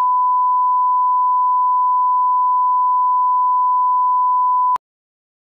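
Reference test tone played with SMPTE colour bars: one steady, pure beep at a single pitch that cuts off suddenly near the end.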